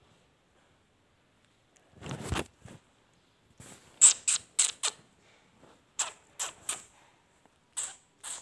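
Handling noise as a young hare is held on a cloth cushion. There is a dull bump about two seconds in, then from about four seconds a run of short, sharp scratchy rustles, with several more after six seconds.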